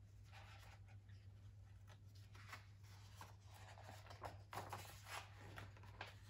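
Faint rustles of paper as the pages of a hardback picture book are handled and a fold-out flap is opened, over a steady low hum.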